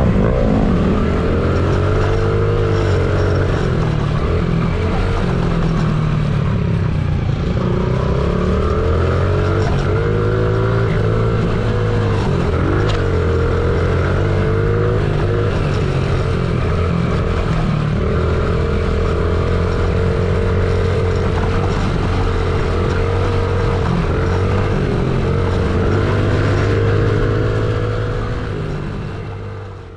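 Honda CRF50's small single-cylinder four-stroke engine being ridden hard, its pitch rising and falling again and again as the throttle opens and closes through the laps and gear changes. The sound fades out near the end.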